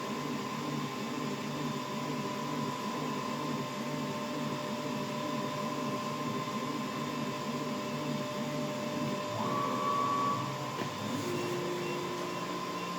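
Stepper-motor-driven gemstone-faceting CNC machine running, with a steady whine and a low pulse about twice a second. About nine and a half seconds in, the motor pitch shifts, then a click, and a new lower whine follows.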